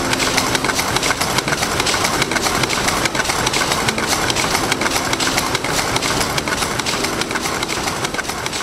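Dense, rapid mechanical clatter of running machinery, with soft held low music notes appearing now and then underneath.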